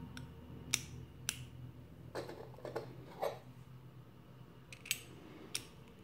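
A glass collimator lens and its metal ring being fitted into a metal LED lens bracket by hand: four sharp little clicks of metal and glass knocking together, with soft handling rustle between them.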